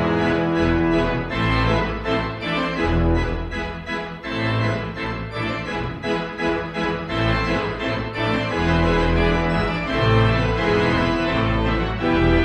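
Instrumental music led by an organ-like keyboard over a moving bass line.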